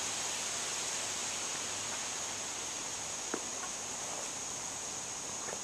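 Steady outdoor hiss with a thin, high-pitched steady tone running through it, and one sharp click about three seconds in.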